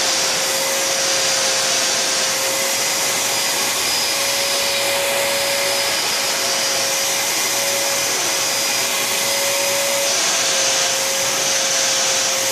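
Vacuum cleaner running steadily, used to vacuum a husky's coat: a constant rush of air over a steady motor whine.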